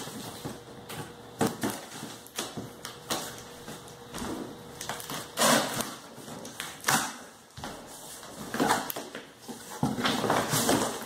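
Large cardboard shipping box being opened by hand: packing tape slit along the top and the cardboard flaps pulled and scraped open, in an uneven run of scrapes, rustles and knocks.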